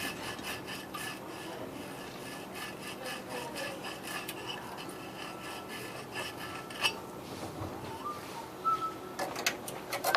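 Cut ends of a copper refrigeration suction line being sanded by hand before brazing: quick back-and-forth rubbing strokes that slow after about six seconds, with a few sharper knocks near the end.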